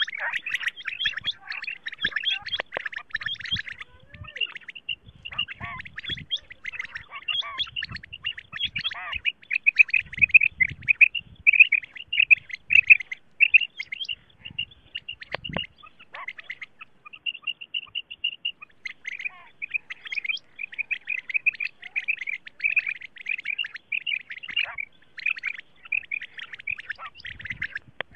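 Female common quail (batair) calls, the kind used as a lure for quail hunting: a dense, rapid run of short high chirping notes with a few brief pauses and a few faint low knocks.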